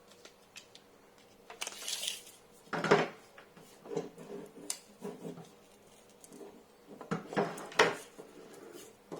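Scattered clinks, knocks and rustles of a welding machine's ground clamp and its cable being handled while it is measured, with the loudest knocks about three seconds in and near the end.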